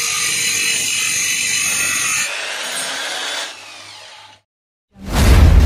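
Corded Foster FK-5513 Pro electric drill running under load on wood: first with a sanding-disc attachment grinding, then, about two seconds in, a changed cutting sound, quieter from about three and a half seconds as a hole saw bores into a plank. The sound stops a little after four seconds, and loud intro music begins about five seconds in.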